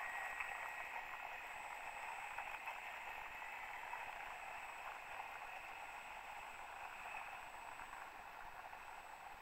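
Electric motor and propeller of a 1.2 m HobbyKing P-51 Mustang RC model whirring as the plane rolls away down the runway, fading steadily with distance.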